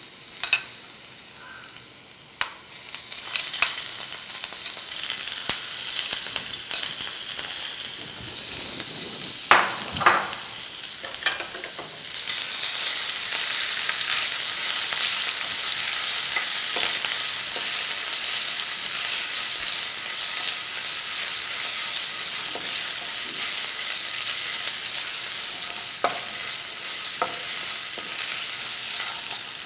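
Crushed ginger and garlic sizzling in hot oil in a nonstick frying pan while being stirred with a wooden spatula. The sizzle steps up louder about twelve seconds in, and a few sharp knocks of the spoon and spatula against the pan come through.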